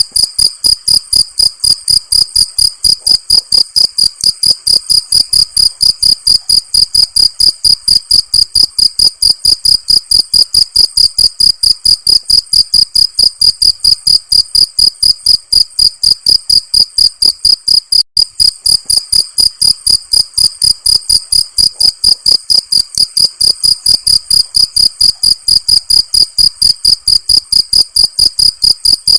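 Cricket chirping: a loud, high-pitched, rapid train of evenly spaced chirps, with one brief break partway through.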